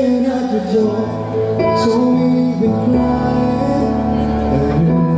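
A man singing live into a handheld microphone over a recorded backing track, played through a PA system.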